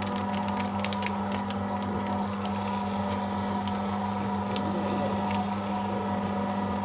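Paper shredder motor running with a steady hum while it feeds through a continuous strip of thermal-print ECG paper, with scattered light crackles of paper, more of them in the first few seconds.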